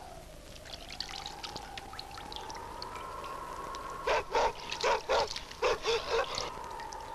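A dog barking, about seven sharp barks in quick twos and threes between about four and six seconds in, over a tone that wavers slowly up and down in pitch.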